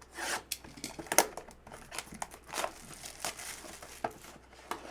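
Plastic wrapper of a Bowman's Best trading-card pack being torn open and crinkled by hand, a run of irregular crackles and rustles.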